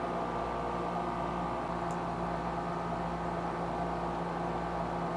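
Steady room hum: an even machine drone with a hiss over it, unchanging throughout, with one faint tick about two seconds in.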